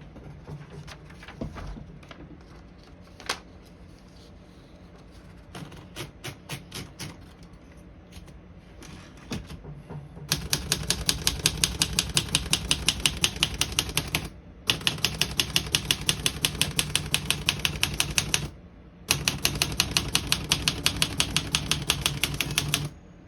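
Olivetti Lettera 32 manual portable typewriter: a few scattered clicks and taps, then about ten seconds in, rapid even keystrokes as the keys are typed one after another, broken by two short pauses.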